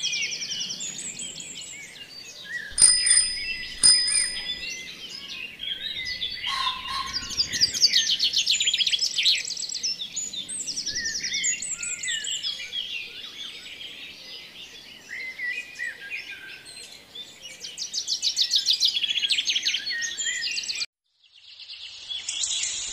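A chorus of songbirds chirping and trilling, with fast trills about eight and nineteen seconds in. Two sharp clicks with short high ringing tones stand out about three and four seconds in, and the sound cuts out briefly near the end before the chirping resumes.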